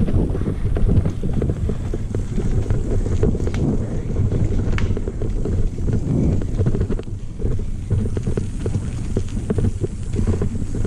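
Mountain bike riding down a dirt trail: tyres rolling and the bike rattling over the bumps, with a few sharper clicks and wind rushing over the microphone.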